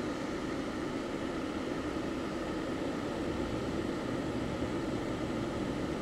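Water boiling: a steady, unbroken bubbling.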